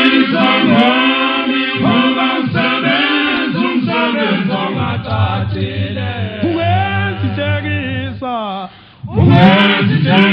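Zulu male a cappella choir singing isicathamiya in close harmony, with a long-held low bass note under the voices partway through. The voices drop away briefly, then all come back in together near the end.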